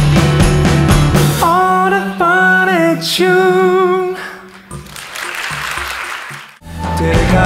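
Live pop band ending a song: the full band stops and a sung note is held with vibrato over a sustained chord, then brief audience applause, and after a short break the band starts the next song with drums, bass and electric guitars.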